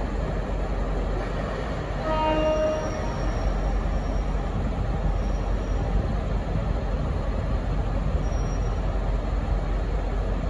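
V/Line N class diesel-electric locomotive running steadily as it rolls slowly along the platform. A short horn note sounds about two seconds in, and a faint high-pitched wheel squeal comes and goes.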